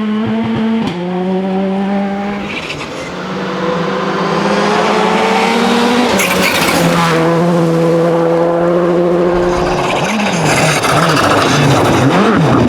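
Rally car engine pulling hard through the gears, its pitch climbing in each gear and dropping sharply at each upshift, three times. In the last few seconds the revs swing quickly up and down under a hiss of tyres sliding on the loose surface.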